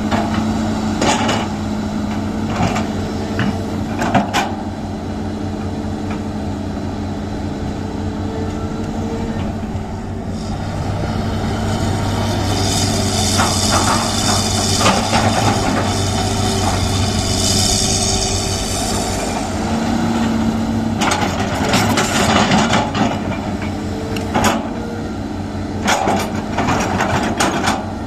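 Excavator's diesel engine running steadily under load while digging, with sharp metal clanks now and then and a hiss for several seconds in the middle.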